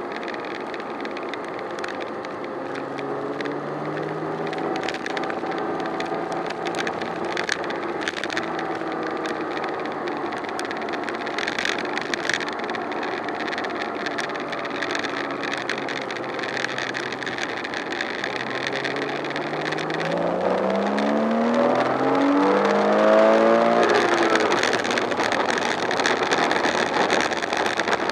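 Porsche Boxster S (987) mid-mounted flat-six heard from inside the cabin, running at part throttle, then accelerating hard about two-thirds of the way in. The engine note climbs steeply in pitch and grows louder, then evens out near the end.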